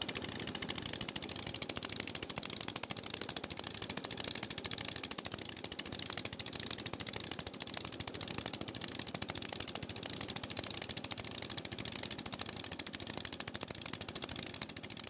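Diesel engine of a wooden river passenger boat running under way with a rapid, even clatter.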